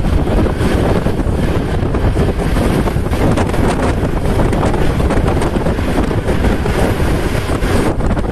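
Loud, steady wind buffeting the microphone during a fast ride, with a vehicle's motor running underneath.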